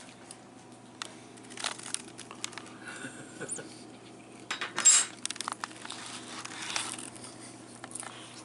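A man chewing a bite of food that is too hot, huffing out through pursed lips to cool it, with the loudest puff of breath about five seconds in, amid small clicks and rustles.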